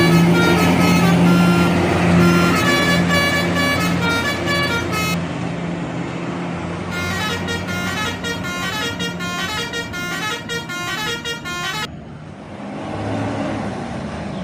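Indonesian bus telolet horn playing melodic phrases of short stepped notes over the bus engine. A faster run of notes follows a short pause, then cuts off suddenly near the end, leaving engine and road noise.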